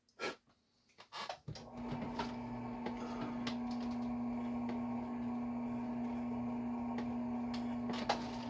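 Benchtop drill press motor switched on about a second and a half in and running steadily, with an even hum, as it spins a roll-crimp tool to close a hand-loaded shotgun shell. A couple of light handling clicks come before it starts.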